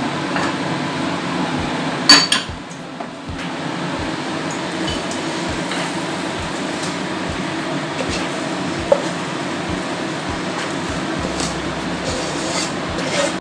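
Wooden spatula stirring and scraping a dry, crumbly semolina and coconut filling around a pan, with soft knocks every half second or so over a steady background noise. A sharp clack about two seconds in, and a smaller one near nine seconds.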